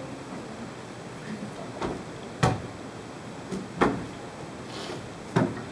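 Four sharp knocks at uneven intervals over a steady low hiss of room noise.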